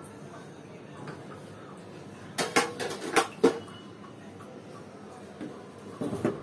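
Metal clattering in a large preheated aluminium pot: a wire trivet stand knocks against the pot in a quick run of clinks a couple of seconds in, and again briefly near the end.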